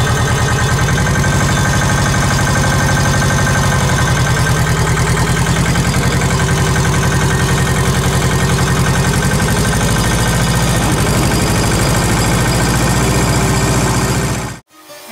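Small diesel tractor engine running steadily with an even, pulsing exhaust beat. The sound cuts off suddenly near the end.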